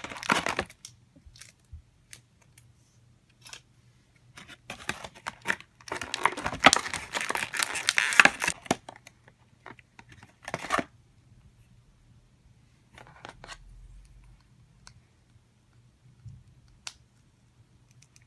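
Plastic toy packaging being torn open and crinkled in several rustling bursts, the longest and loudest about six to nine seconds in, then a few light clicks.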